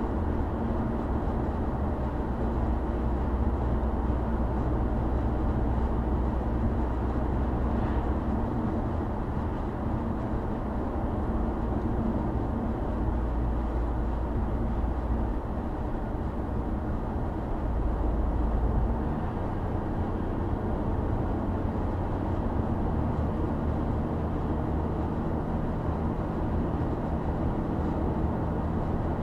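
Steady road noise inside a moving car's cabin: tyre and engine drone with a low hum, which shifts slightly about two-thirds of the way through.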